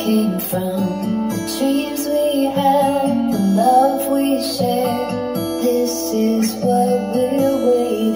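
A pop song with strummed acoustic guitar played through the Philips 50PUG7625 TV's built-in speakers and picked up by a phone microphone in the room. It is a little short of bass, which the reviewer puts down to the TV's cabinet.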